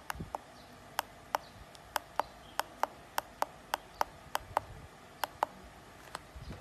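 Small tactile push-button switches on a voltage protector's display circuit board being pressed repeatedly, giving a run of sharp clicks about two to three a second at uneven spacing, as the settings are stepped through.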